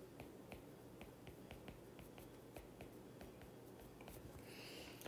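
Faint, irregular ticks of a stylus tip tapping and writing on a tablet's glass screen, several a second, over near-silent room tone.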